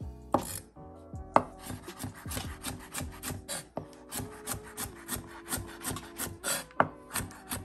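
Chef's knife dicing carrot on a wooden cutting board. A few separate heavy chops come first, then rapid, even strokes about four or five a second, with one loud chop near the end.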